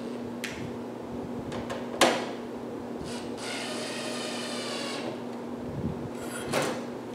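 Cordless drill running in one steady burst of about a second and a half, drilling rivet holes in the rubber baffle seals on the engine baffles. A sharp knock comes about two seconds in, with a few lighter clicks and another knock near the end.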